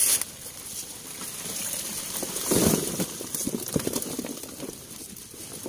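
A mass of small live fish flopping and sliding wetly in a mesh net as it is tipped and they pour into a plastic tub, a crackling, pattering rustle with a louder rush about two and a half seconds in.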